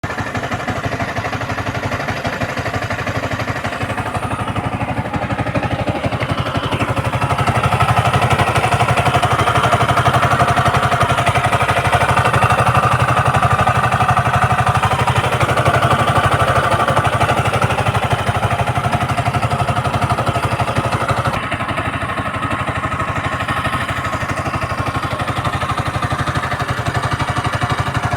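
Yamaha MT-15's single-cylinder engine running steadily, carrying an abnormal engine noise that the owner is trying to find. It gets louder about seven seconds in and drops back about twenty-one seconds in.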